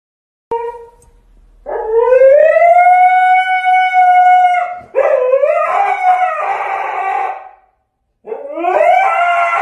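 Siberian husky howling in three long calls. The first rises and then holds steady; the next two waver and turn rough, like a crying howl. It is a husky's protest as its owner gets ready to leave.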